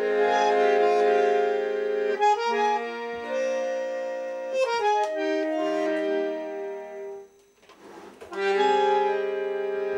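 Bandoneon playing held chords that change every second or two, with a short break about three-quarters of the way through before it comes back in with a loud chord.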